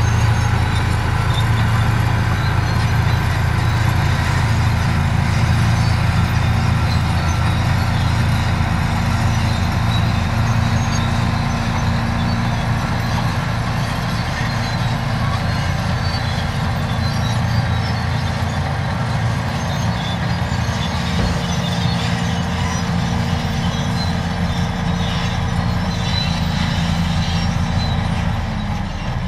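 Crawler bulldozer's diesel engine running steadily with a low drone as the dozer pushes rock with its blade, growing a little fainter near the end as it moves away.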